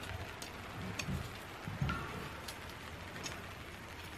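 A few scattered light clicks and soft knocks as tent pole sections are handled and fitted together to lengthen a pole, over a faint steady hiss.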